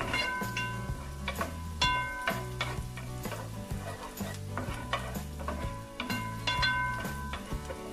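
Chopped garlic and butter sizzling in a metal pot while a wooden spoon stirs, with frequent clicks and scrapes of the spoon against the pot. Background music with a stepping low bass line plays underneath.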